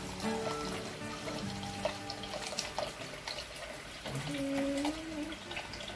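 Water running from a water dispenser's cold tap into a rice cooker's inner pot holding rice, with background music playing over it.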